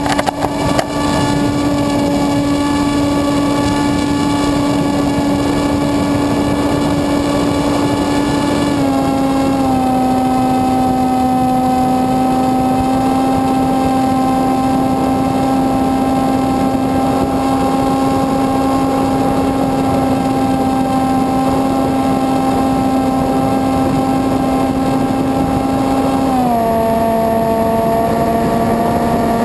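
Electric motor and propeller of a Dynam Hawk Sky RC airplane, heard from on board, running with a steady whine. The pitch steps down slightly about nine seconds in and again near the end as the motor slows a little.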